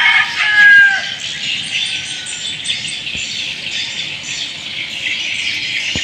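A rooster's crow trails off about a second in, over a steady, dense, high-pitched chirping chorus of insects and birds.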